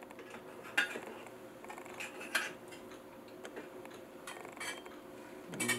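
A handful of light, irregularly spaced metal clicks and taps as the parts of a stainless steel percolator (filter basket and stem) are handled and fitted together, over a faint steady hum.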